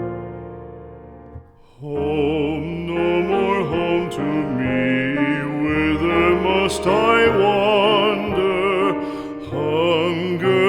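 Background music: a piano chord dies away, then about two seconds in a singer comes in over piano accompaniment, holding notes with a strong vibrato.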